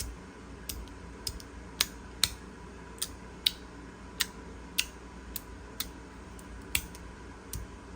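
JMEB fidget slider snapped back and forth by hand through its ball detents, giving a string of sharp, irregular clicks about two a second.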